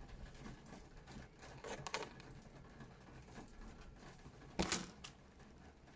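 Light clicks and knocks from handling, with one sharper, louder knock about four and a half seconds in.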